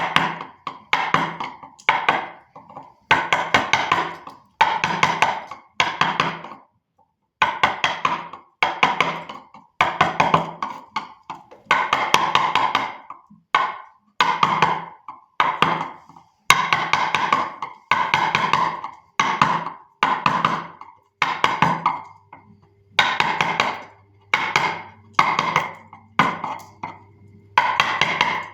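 Mallet tapping a carving chisel into wood in quick runs of knocks, each run under a second, with short pauses between runs.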